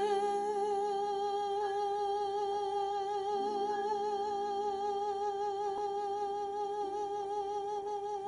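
A woman's singing voice holding one long note with a steady vibrato, the song's closing sustained note, over soft low accompaniment.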